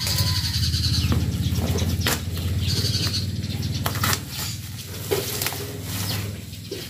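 Plastic bubble-wrap packaging rustling and crinkling as hands pull at it and cut it open with scissors, with a few sharp snips or clicks. A steady low hum runs underneath.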